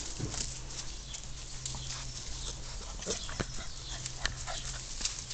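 German shorthaired pointer puppies playing in long grass: short squeaks and grunts among scattered rustles and clicks, over a steady low hum.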